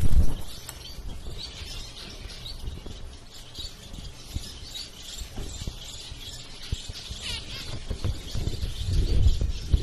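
Caged zebra finches calling in short, scattered chirps, with one longer wavering call about seven seconds in. A loud low thump right at the start and low rumbling bumps near the end.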